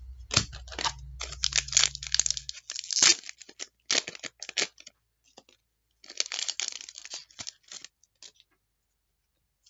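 A trading-card pack wrapper being torn open and crinkled by hand, in rustling spurts through the first few seconds and again later, then quiet near the end.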